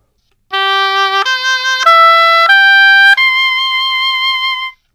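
Oboe played loudly: five notes climbing step by step, the top note held longest before it stops.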